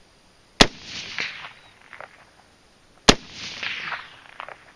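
Two single shots from a mud-caked AR-15 rifle in 5.56 mm, about two and a half seconds apart. Each is followed by an echo that fades over about a second.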